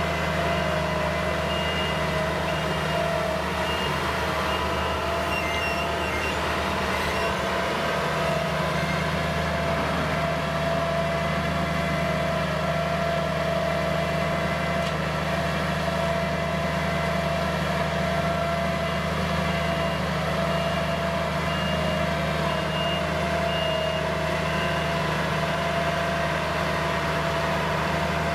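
New Holland skid-steer loader's diesel engine running steadily, with a reversing alarm sounding short runs of evenly repeated high beeps near the start and again about two-thirds of the way through.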